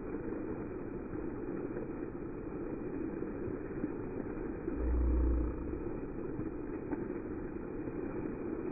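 Steady rush and splash of water from the jets of a lit plaza fountain, with a brief low rumble about five seconds in.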